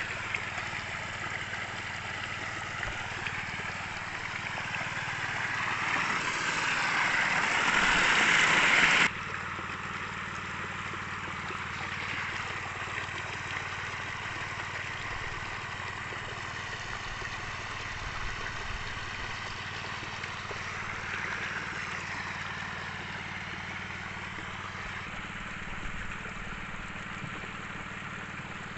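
Sand-and-water slurry rushing down a wooden tin-mining sluice over the steady hum of the sand-suction pump's engine. The rush of water grows louder, then drops off suddenly about nine seconds in.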